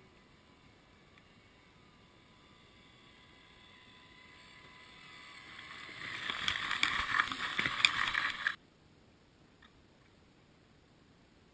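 Radio-controlled Tamiya CC-01 Pajero crawler's electric motor and gears whining as it drives up to the camera, growing louder, with clicks and crunches from its tyres on dry grass and sand. The sound cuts off suddenly about three quarters of the way in.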